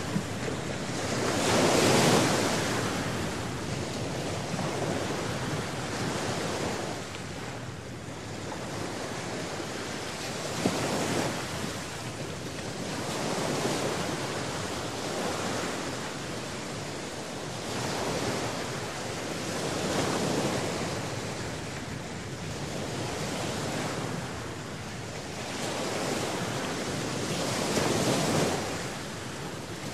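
Sea surf: waves breaking and washing, rising and falling in irregular swells every few seconds.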